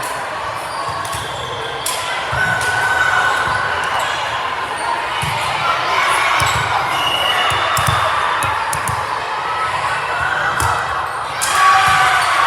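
Volleyball being played in a gym: sharp ball hits and bounces echo through the hall over a steady background of crowd and player voices. The noise swells near the end.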